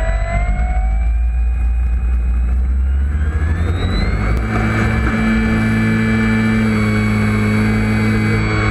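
Electric motor and propeller of a Dynam SBACH 342 radio-controlled model plane, heard from on board: a whine that climbs in pitch as it throttles up for the takeoff run, rises again about four seconds in, then holds steady in the climb. A low rumble of the wheels rolling on the road stops about four seconds in as the plane lifts off.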